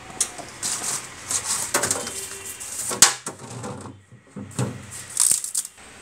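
Crinkling and rustling of a paper instruction sheet being handled, with scattered clatters and one sharp knock about three seconds in.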